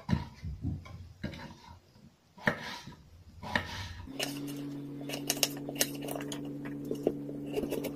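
Kitchen knife cutting raw potatoes on a cutting board: irregular knocks and taps of the blade striking the board. About halfway through a steady low hum starts underneath the quicker clicks of the cutting.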